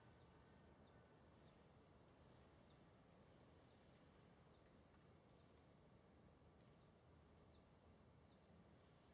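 Near silence: a faint, steady high-pitched insect drone, with short falling chirps about once a second.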